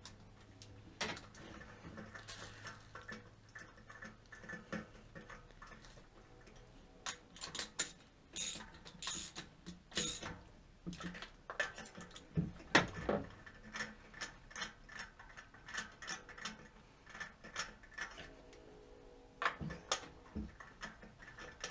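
Ratchet wrench clicking in short irregular runs, with clinks of the socket and extension, as a spark plug is worked loose.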